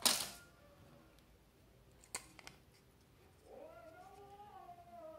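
Handling noise as a bare phone circuit board is picked up: a brief rustling burst at the start and a sharp click about two seconds in. From about three and a half seconds, a long, wavering, high-pitched call that swoops up at its start runs underneath.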